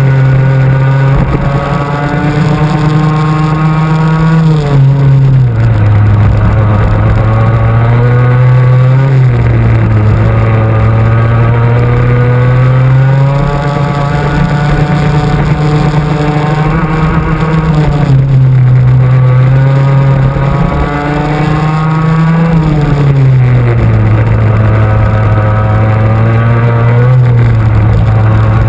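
Two-stroke racing kart engine heard from onboard, running hard at high revs: its pitch climbs steadily along each straight and drops sharply as the driver lifts for a corner, several times over.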